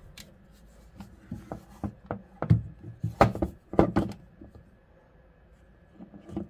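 Handling noise: about a dozen light knocks and clicks in quick, uneven succession, the loudest few about two and a half to four seconds in, then only a couple of faint taps near the end.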